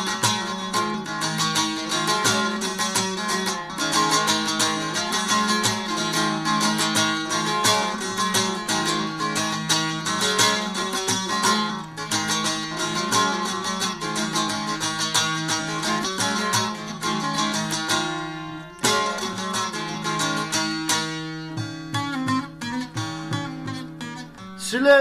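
Bağlama (long-necked Turkish saz) played alone in an instrumental break, fast and steady strumming of the melody, with a short dip about nineteen seconds in.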